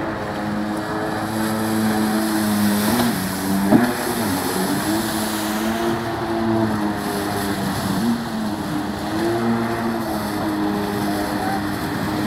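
Jet ski engine running hard, its pitch rising and falling as the rider throttles through turns, over the hiss of spray and wash. A single sharp knock a little under four seconds in.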